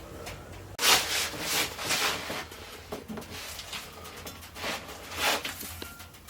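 Rustling, rubbing noises in two spells, a longer one about a second in and a shorter one near five seconds, over a low steady hum.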